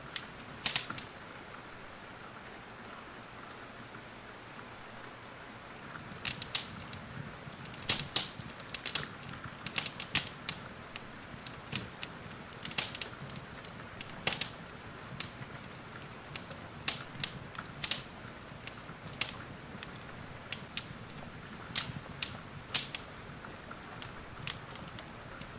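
Steady rain hiss with a fireplace fire crackling over it: sharp pops and snaps, few at first and then frequent from about six seconds in.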